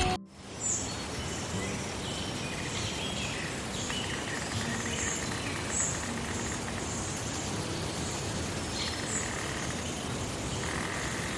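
Small birds chirping in short, high, scattered calls over a steady outdoor background hiss.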